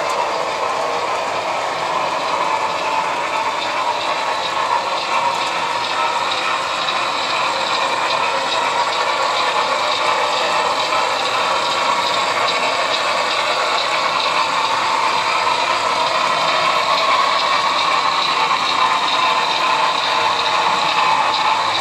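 HO-scale model freight train's wheels rolling on the track and its locomotive's gearing: a steady mechanical clatter that stays even throughout.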